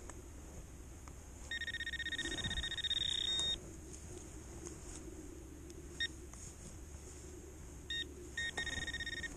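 Garrett handheld pinpointer beeping as its tip nears a metal target in the soil: a rapid electronic tone for about two seconds starting a second and a half in, then a short blip and two more beeps near the end.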